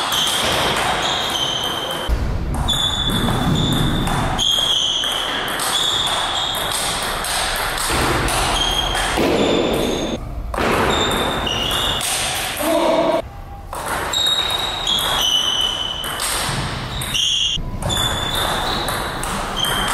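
Table tennis balls clicking off bats and the table in quick, irregular short pings, over a steady background of voices.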